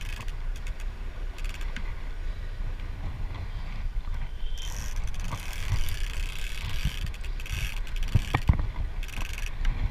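Large big-game trolling reel being cranked in short spells as the rod is pumped, winding line back in against a hooked marlin, with gear whirring and scattered clicks. A steady low rumble runs underneath, and a few sharper clicks come near the end.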